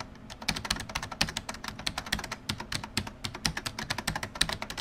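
Computer keyboard typing sound effect: a quick run of key clicks, several a second, synced to on-screen text appearing letter by letter.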